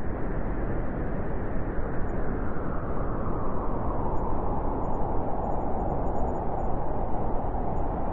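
Howling wind blowing steadily, a dense rushing noise with no gusts or breaks.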